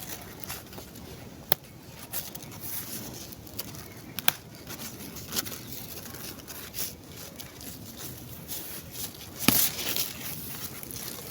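Light rustling and crackling of fresh leaves as rabbits are fed mulberry leaves, with a few sharp clicks scattered through.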